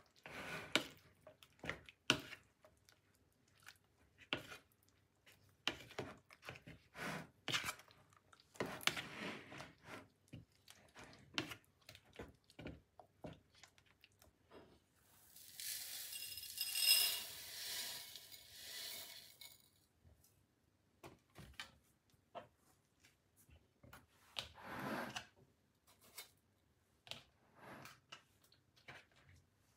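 Metal fork clicking against a plastic container and squishing through raw chicken strips coated in wet egg batter, in short irregular strokes. About halfway, a louder rustling noise lasts around five seconds.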